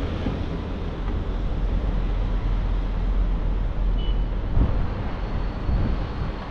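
Outdoor city street ambience: a steady low rumble of traffic.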